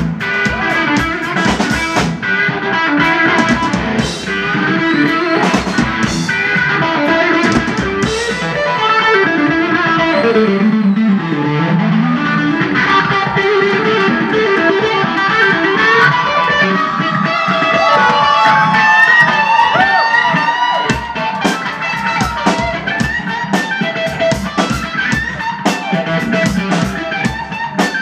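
Live rock music from electric guitar and drum kit, the guitar playing a lead line with bent notes over steady drumming.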